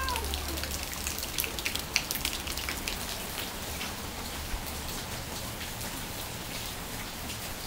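Steady rain falling, with many small sharp drips and patters in the first few seconds that thin out toward the end.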